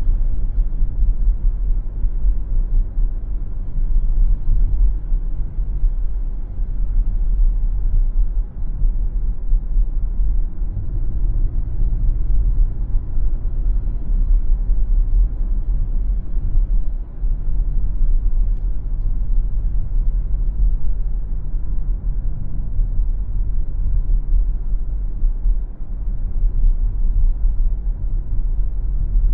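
Low, steady road and engine rumble of a car driving, with a humming tone standing out for a few seconds near the middle.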